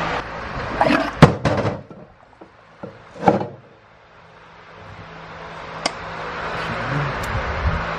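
Several sharp metal clunks and knocks as a removed Ford E4OD automatic transmission and its torque converter are handled, the loudest about a second in and another heavy clunk a little after three seconds. A steady shop hum fades out in the middle and comes back.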